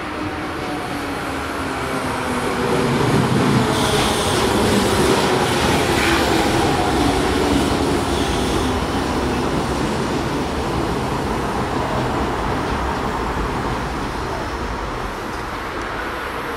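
JR Kyushu 103 series 1500 electric train pulling into the platform and braking. Its motor and gear whine falls steadily in pitch as it slows over a steady rumble. A brief high squeal from the wheels or brakes comes about four seconds in.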